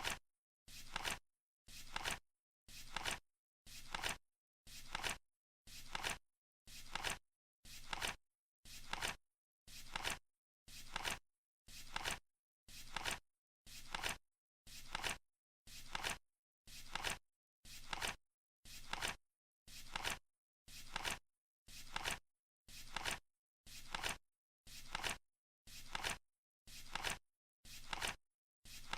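Flip clock ticking over once a second: each flip is a short rustling flap that ends in its loudest moment, in a strictly even rhythm, with dead silence between flips.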